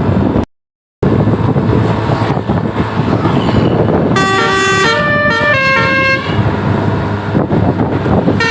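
Bus's multi-tone "basuri" telolet horn playing a quick tune of stepped notes for about two seconds, starting about four seconds in, over road and wind noise. The sound drops out for half a second just after the start.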